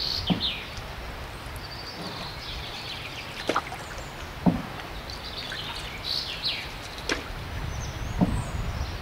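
Wooden canoe paddle stroking through calm canal water, water dripping and trickling off the blade, with five short sharp sounds from the strokes, the loudest about halfway. Birds chirp in the background.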